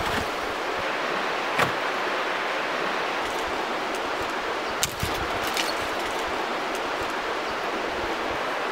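Steady rushing of running water, with a few sharp wooden knocks as a long wooden pole is set into a tree fork: one about a second and a half in, and a couple more about five seconds in.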